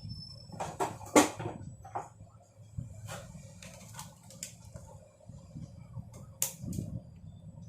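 Side cutters snipping off the protruding leads of a freshly soldered micro switch on a circuit board: a series of sharp clicks, the loudest about a second in, over a steady low hum.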